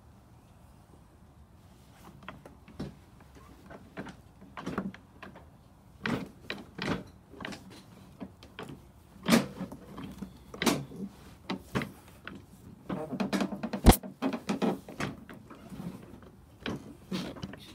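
Irregular knocks, clunks and rattles of things being handled and bumped around the lawn tractor, starting about two seconds in, with one sharp click about fourteen seconds in as the loudest sound.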